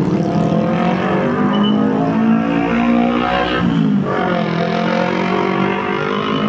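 Bus engine revving: its pitch climbs, drops sharply about three and a half seconds in, then climbs again.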